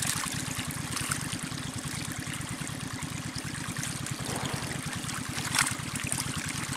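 Water running and churning through a narrow muddy channel, with a steady low hum underneath and one short louder sound about five and a half seconds in.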